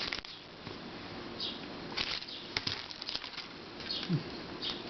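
Small plastic puzzle cubes being handled: soft rustling with a few light clicks as they are picked up and set down.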